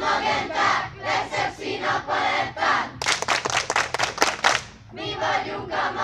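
A crowd of children chanting loudly together in rhythmic bursts. About three seconds in, the chanting gives way to a run of hand claps lasting about a second and a half, then the chanting resumes.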